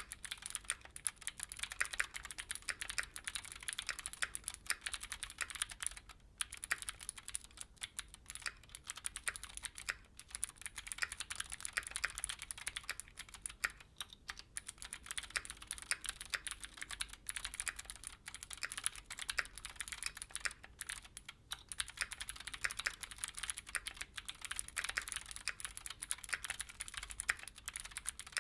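Continuous fast typing on a Keychron Q6, a full-size aluminium-cased mechanical keyboard: a dense run of key clicks, with a few brief pauses.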